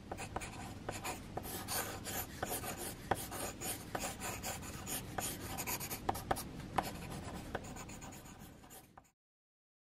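Mechanical pencil scratching on paper in short, quick sketching strokes, with small ticks as the lead meets the page. It cuts off suddenly about nine seconds in.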